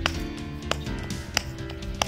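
Hands slapping a ball of bajra (pearl millet) dough flat into a roti, about every two-thirds of a second, over background music.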